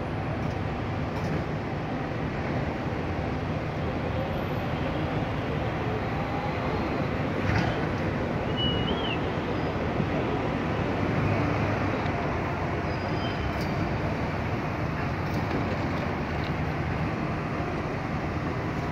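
Diesel engine of a road-rail truck running steadily as it slowly approaches along the rails, hauling loaded ballast hopper wagons, over a constant hum of city traffic.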